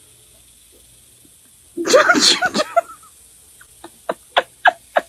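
A sudden loud, breathy burst about two seconds in, like a sneeze or an outburst. It is followed from about three and a half seconds by a person laughing in short, evenly spaced bursts of about three a second.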